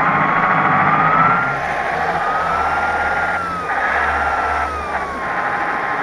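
Simulated air-cooled diesel V8 from the sound unit of an RC Tatra 130 6x6 model truck, played through the model's own speaker as it drives: the engine note shifts every second or two, under a whining cooling-fan howl that glides slowly up and down in pitch.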